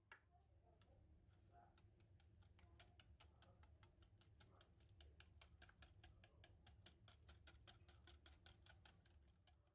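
Wire whisk beating eggs into kefir in a glass bowl, the wires clicking faintly and evenly against the glass about five times a second, starting about two seconds in.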